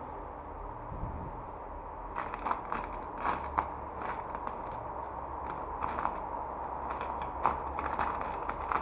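Irregular light clicks, taps and scrapes of small parts and screws being handled and fitted by hand, starting about two seconds in, over a steady low hum.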